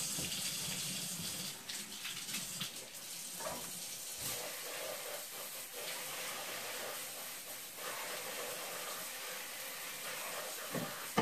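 Kitchen sink faucet running steadily, water pouring into the sink, with a few faint knocks.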